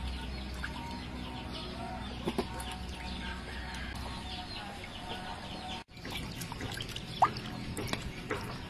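Raw chicken drumsticks being washed by hand in a steel bowl of water, with light sloshing and small splashes, while chickens cluck and other birds chirp around. A single sharp call stands out about seven seconds in.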